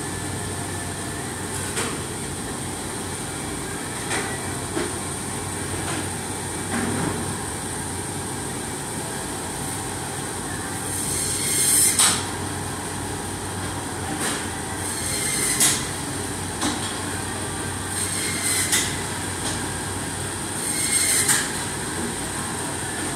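Meat band saw running with a steady whine. The blade screeches in short bursts as it cuts through bone-in porterhouse steaks, about every three seconds in the second half.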